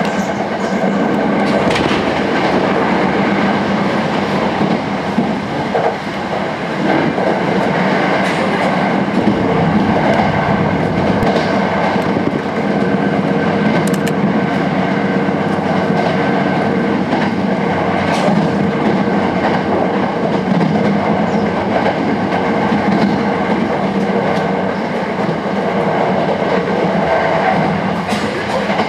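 Cabin sound of a Sanyo Electric Railway 5000 series train car running at speed: a steady rolling rumble of wheels on rails under a faint hum, with occasional sharp clicks.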